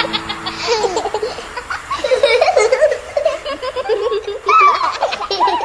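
Young child laughing and giggling in quick bursts, with high squeals about halfway through.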